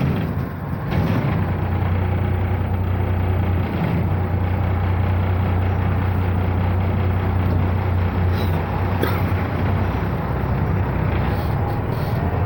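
Ikarus 260 bus's diesel engine idling steadily, heard from inside the bus, with a steady low hum.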